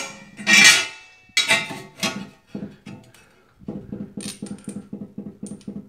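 Small hand tool and plastic toilet-tank parts being handled: a few sharp clatters and knocks in the first two seconds, then a quick run of small rapid clicks lasting about two seconds near the end.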